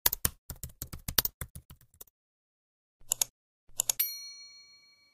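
Keyboard typing sound effect, a quick run of key clicks, then two mouse clicks and a bright bell ding that rings out and fades.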